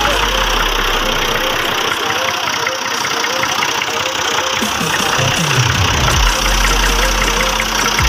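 A Massey Ferguson tractor's diesel engine running as the tractor drives along a dirt track. About five seconds in, the low engine note falls steeply in pitch.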